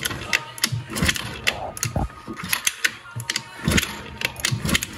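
Yamaha Aerox scooter being kicked over several times with a compression gauge in the spark plug hole, so the engine turns over without firing: repeated low thumps from the kicks with mechanical clicking between them.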